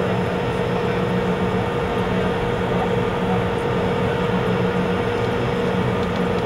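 M1 Abrams tank's gas turbine engine idling: a steady, loud running hum with constant tones held through it.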